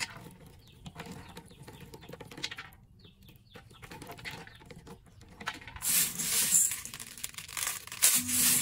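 Faint rustling and crackling of a mat of bean sprouts being pulled up out of a plastic basket; from about six seconds in, a loud dry rattle of mung beans being stirred and sifted by hand in a stainless steel bowl.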